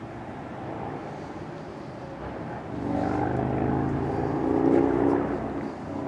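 A motor vehicle passing close by: an engine and tyre hum that swells about two and a half seconds in, peaks, and eases off near the end.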